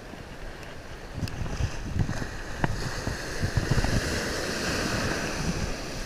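Ocean surf breaking and washing up the beach, the rush swelling from about two seconds in and easing near the end, with wind buffeting the microphone.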